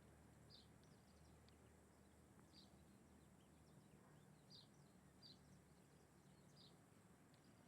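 Faint, short bird chirps repeated at irregular intervals, about six of them, over a steady low hum.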